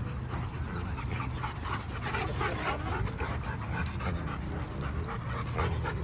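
Dogs panting quickly and rhythmically while they run and play.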